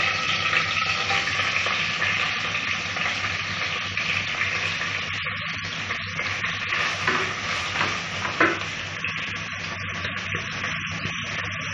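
Sliced onions and curry leaves sizzling steadily in hot coconut oil in an open pressure cooker, stirred with a spatula, with a couple of sharper scrapes about seven and eight seconds in.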